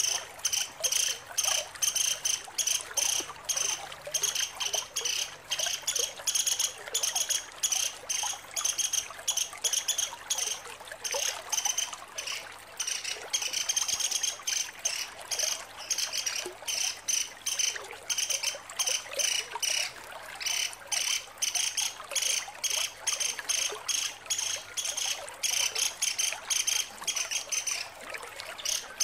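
Female pelatuk sampit, a small woodpecker, giving long rattling 'ngecret' chatters: strings of fast, high, dry notes, one run after another with short breaks between.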